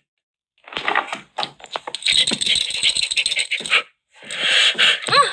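Small hard plastic toy pieces clicking and clattering together as they are handled, in a quick irregular run with a short pause a little before the end.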